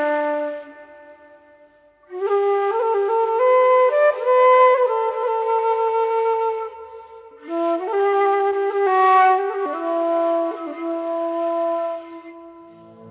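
Background music: a slow, flute-like wind-instrument melody of long held notes with slides between pitches. It comes in two phrases, with a short drop in level between them and another near the end.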